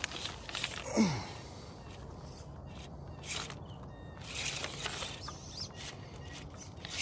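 Small electric motors of a 1/16-scale RC rock crawler driving in short bursts as it climbs over boulders, with one short falling whine about a second in as the throttle is let off, and tyres scrabbling on rock.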